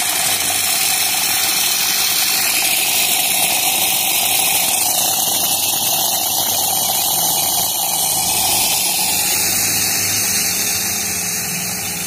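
Cafelffe EM653-3C espresso machine's steam wand hissing steadily into a stainless steel pitcher as the leftover steam pressure is released on the hot-water setting, with a low machine hum underneath. The hiss eases toward the end as the wand goes over to hot water.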